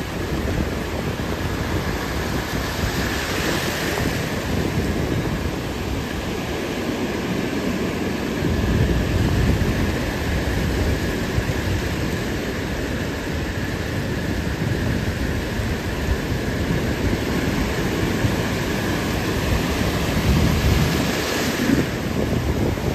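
Ocean surf breaking and washing up the sand as a continuous rush of noise, swelling as bigger waves break a few seconds in and again near the end.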